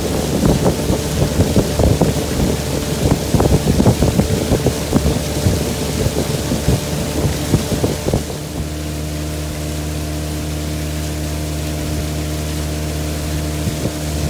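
Outboard motor driving a freighter canoe at a steady speed, with gusty wind buffeting the microphone over it. About eight and a half seconds in, the sound changes abruptly to a smoother, steady engine hum with the wind gone.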